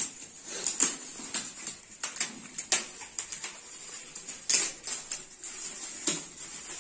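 Shiny gold gift wrap crinkling and tearing in irregular crackles as hands pull it open on a box.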